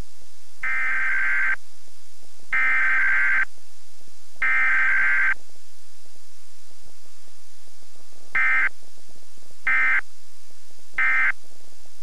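Emergency Alert System digital data tones for a Required Weekly Test. First come three header bursts of harsh two-tone warbling, about a second each. A few seconds later come three shorter end-of-message bursts.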